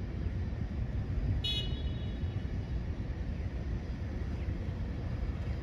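Steady low rumble of vehicles idling and passing, with a short, high-pitched toot or beep about one and a half seconds in.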